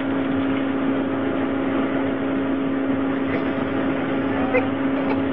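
Steady hum of a ski surface lift's drive machinery at the bottom station, a constant low tone over an even mechanical noise.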